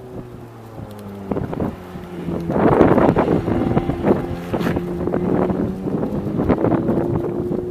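Ferrari F430 Spyder's 4.3-litre V8 engine running at a steady pitch, getting louder about two seconds in, with heavy wind buffeting the microphone throughout.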